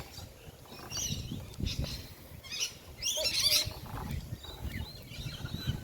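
Birds calling: a few short bursts of high chirps, the longest and loudest about three seconds in, over a low, uneven rumble.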